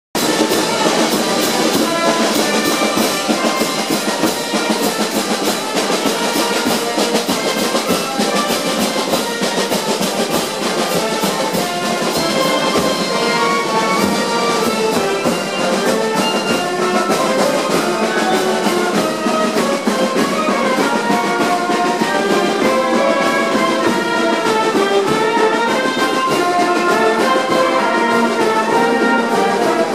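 Marching brass band playing a pasacalle street march: brass horns carry the tune over a steady, evenly spaced drum beat.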